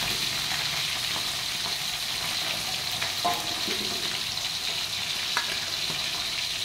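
Whole small fish frying in hot oil in a wok, a steady sizzling hiss with a couple of small crackles; the fish are still on their first side, not yet turned.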